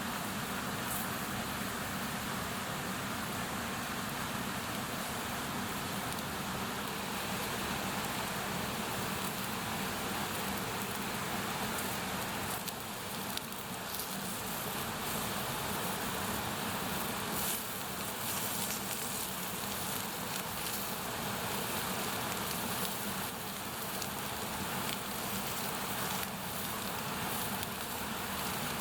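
Wood bonfire burning, a steady hiss with scattered crackles and pops.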